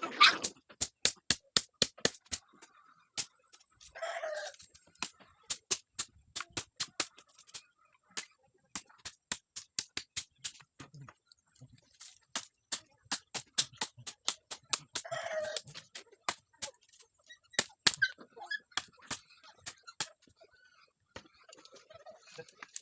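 Chickens calling, with two short loud calls about four seconds in and again about fifteen seconds in, over a steady run of sharp clicks at several a second.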